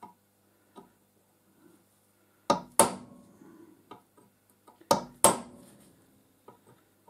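Hammer blows on a metal drift punch, driving out a pin on an old machine: two pairs of sharp strikes, the second pair about two seconds after the first, each blow ringing briefly. The restorer thinks the blows don't sound favourable, a sign the pin may be stuck and not moving.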